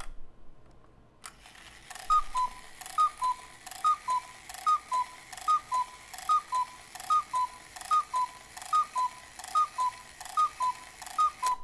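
Cuckoo clock striking: a click as the strike train trips about a second in, then twelve two-note cuckoo calls from its pair of bellows-blown whistles, a higher note then a lower one, about one call every 0.8 s, each with a sharp tap from the mechanism.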